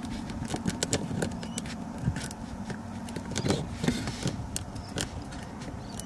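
Irregular light clicks and taps as a plastic module is pressed and worked down onto a Velcro pad on a car dashboard, over a low steady rumble.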